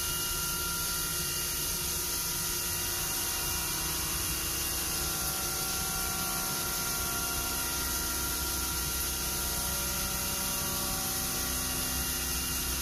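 Haas UMC-500SS five-axis CNC mill cutting with a half-inch carbide end mill under flood coolant while it roughs the outside profile of round bar stock. The sound is a steady hiss of spraying coolant and cutting, with faint steady tones from the machine.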